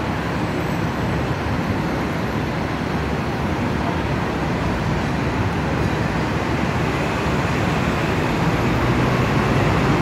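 Steady roadway noise of busy city-street traffic, with buses and cars, growing a little louder near the end.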